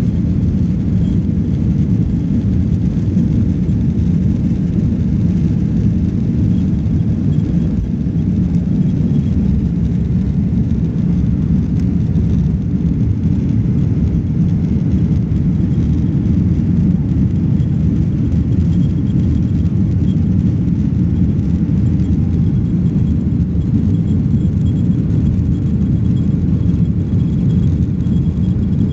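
Jet airliner taking off: its engines at takeoff power make a loud, steady low rumble that holds unchanged throughout.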